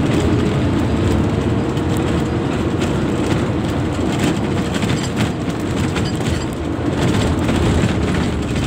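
Hino 260 JD dump truck driving on a rough dirt haul road, heard from inside the cab: a steady diesel engine drone and road rumble, with the cab rattling and clattering continually over the bumps.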